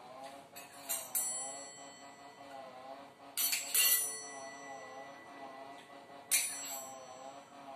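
A steel spoon clinking against a small steel bowl, struck in three pairs of quick taps a couple of seconds apart, each leaving a short metallic ring. Music plays faintly underneath.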